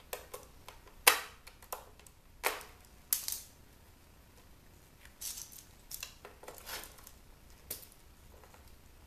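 Sharp clicks and taps of hard plastic and a small screwdriver as the casing of a CD/tape player is handled and probed for hidden screws. A few loud clicks in the first three seconds, then quieter scattered ticks.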